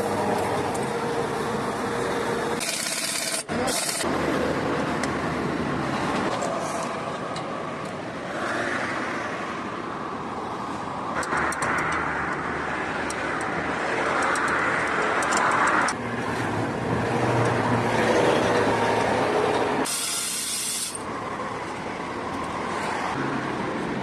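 Motor vehicle running, a steady rumble with road hiss, and two short bursts of high hiss, about three seconds in and about twenty seconds in.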